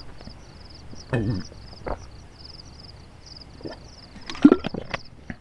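A person drinking water from a plastic bottle: a swallowing sound about a second in, then a cluster of gulps and plastic bottle crackles just after four seconds, the loudest moment. A high chirping repeats steadily in the background.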